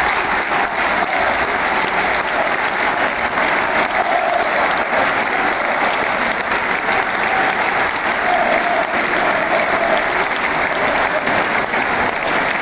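Large crowd in an ice hockey arena applauding steadily, a dense, even clapping.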